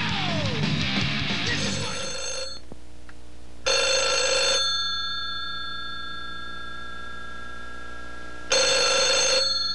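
Telephone bell ringing three times in bursts of about a second, each leaving a long fading ring, from a payphone. Loud music fades out during the first couple of seconds.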